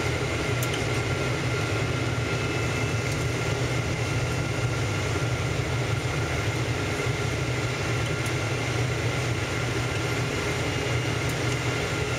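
Steady cabin noise inside a Boeing 777-200ER airliner in flight: a low engine and airflow rumble with an even hiss and two thin steady whines.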